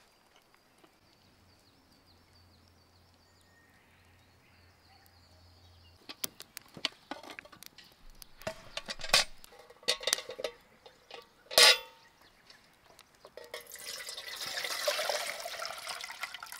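Water poured from a plastic bottle into a metal mess tin on a small wood-burning stove, a steady splashing that starts about three seconds before the end. Before it comes a run of sharp clicks and knocks, the loudest shortly before the pour. The first several seconds are near silence.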